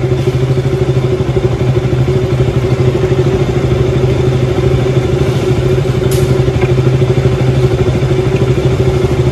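KTM single-cylinder engine running steadily in gear on a stand, turning the rear wheel. The owner hears a "kees kees" squeak as the wheel turns, a squeak traced to worn-out wheel bearings.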